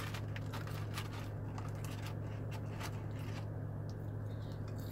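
Steady low hum of a car's air conditioning running inside the cabin, with light rustling and clicks as fries are handled and eaten.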